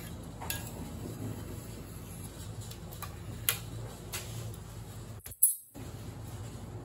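Steady low hum of kitchen room tone, with a few light clicks of cake-decorating tools being handled. The sound cuts out briefly about five seconds in, then comes one sharp click, the loudest sound here.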